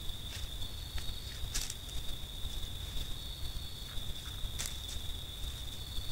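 Steady high-pitched insect trill, with a second, higher trill coming and going, over a faint hiss. A few sharp crackles of dry leaf litter, the loudest about one and a half seconds in and again about four and a half seconds in, as a crab-eating fox noses about in the leaves.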